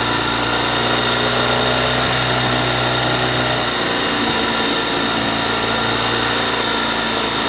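Small outboard motor running steadily, with a slight change in its low hum about halfway through.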